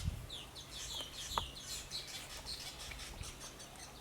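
Small birds chirping, a steady run of short, high, downward-sweeping chirps, with a low thump at the very start.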